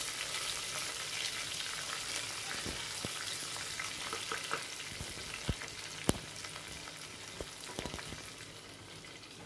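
Sliced green chillies, curry leaves, mustard seeds and cumin sizzling in hot oil in a clay pot while a wooden spatula stirs them, the tempering stage of a masala. A steady hiss that slowly fades, with a few sharp clicks, the loudest about six seconds in.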